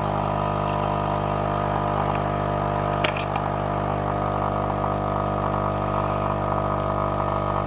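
Nescafé Dolce Gusto Circolo capsule machine's pump running steadily while it brews the coffee capsule, coffee pouring into a glass of milk. There is a brief click about three seconds in.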